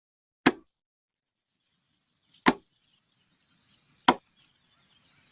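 Three sharp impact hits, each cut short with a quick decay, the second about two seconds after the first and the third about a second and a half later.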